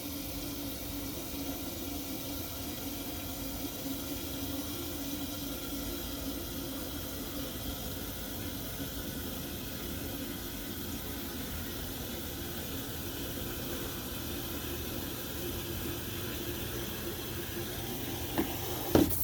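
Water running from a garden hose into a container as it fills, a steady rushing splash. A couple of sharp knocks come near the end.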